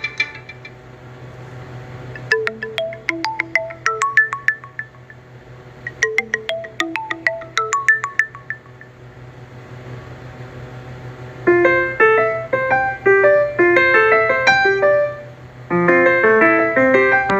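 TCL A1 (A501DL) phone ringtones playing one after another: a short melody of separate bright notes played twice, then, past the halfway point, a different, busier melody that loops, pausing briefly before starting again near the end. A faint steady low hum lies underneath.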